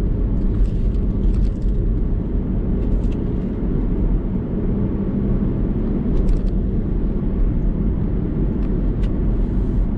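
GMC car driving: a steady low engine and road rumble, heard from inside the cabin.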